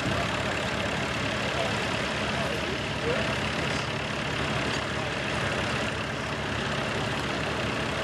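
Massey Ferguson 1200 articulated tractor's six-cylinder diesel running steadily under load while pulling a plough.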